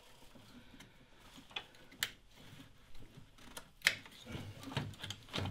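Plastic wiring-loom clips and electrical connectors being unclipped and handled: a few sharp clicks, the loudest near four seconds in, with soft rustling of the wiring between them.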